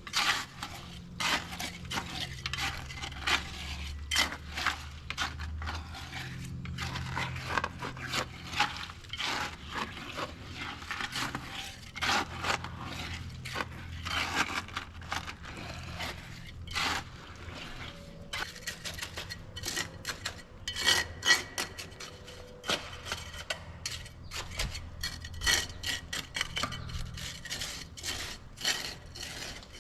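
A metal hand tool scraping repeatedly over gritty material in quick, irregular strokes, with a steady low machine hum underneath.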